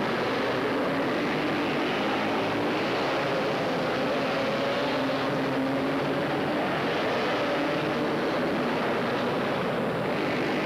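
Several racing three-wheeler engines running hard together, their pitch wavering up and down as the riders throttle through the turns.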